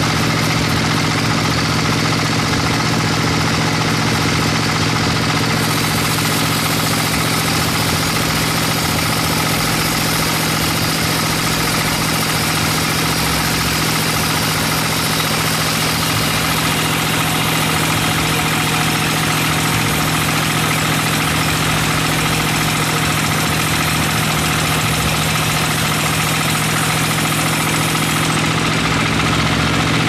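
Band sawmill running steadily, its blade ripping lengthwise through a large log: a constant machine hum under a dense noisy rasp of the cut.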